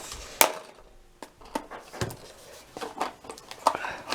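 A singing fish toy being worked out of its cardboard box and plastic packaging by hand: scattered clicks and knocks, the sharpest about half a second in.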